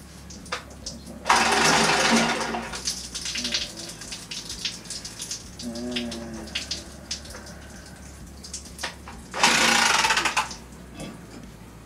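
Water rushing out in two bursts of about a second each, roughly eight seconds apart, over a low steady hum.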